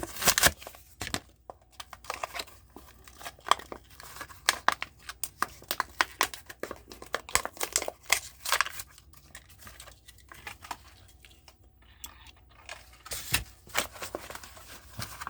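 Carded Hot Wheels blister pack being torn open by hand: crinkling plastic and tearing card in a run of irregular crackles and snaps, loudest near the start and near the end.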